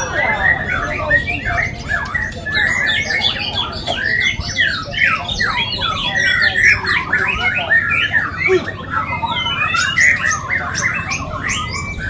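Many caged murai batu (white-rumped shamas) singing at once in a song contest, a dense chorus of quick, overlapping rising and falling phrases that goes on without a break.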